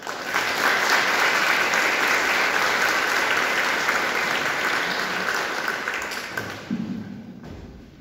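Audience applauding, starting at once and dying away about seven seconds in.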